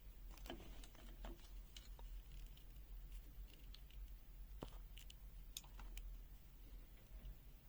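Faint scattered clicks and taps from hands handling a multimeter and its test leads, over a low steady hum.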